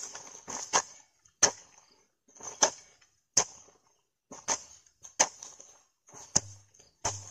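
Hand hoe chopping into dry, clumpy soil to loosen it, about eight strikes roughly a second apart. Each strike is a sharp hit followed by a brief patter of falling clods.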